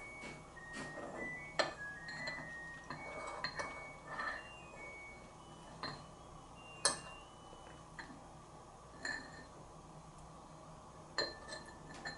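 Metal chopsticks clinking and scraping against a ceramic rice bowl while eating: a dozen or so irregular sharp clinks, some ringing briefly, the loudest about seven seconds in.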